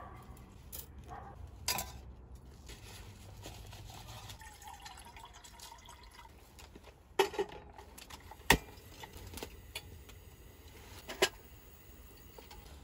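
Hot water poured from a small metal kettle into a paper-filter pour-over coffee dripper. Three sharp clinks follow in the second half, the loudest about eight and a half seconds in.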